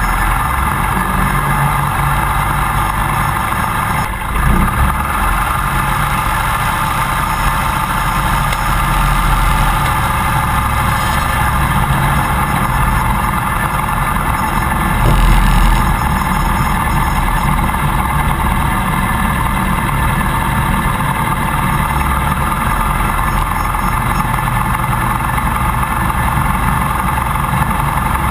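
Piper J3 Cub's Continental C-90 four-cylinder air-cooled engine running steadily at low taxi power, with two brief louder swells about four seconds in and about fifteen seconds in.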